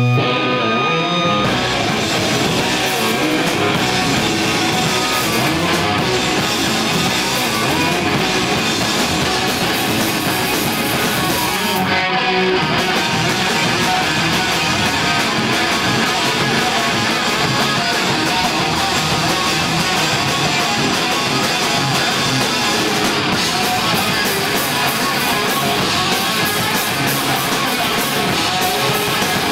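Rock band playing live on electric guitars, bass guitar and drum kit, loud and dense throughout. A held guitar note opens it before the full band comes in about a second and a half in, and there is a brief break near the middle.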